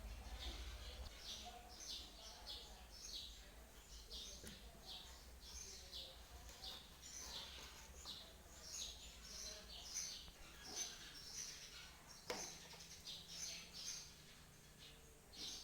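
Faint, busy chirping of small birds, short high chirps following one another several times a second, with one sharp click about twelve seconds in.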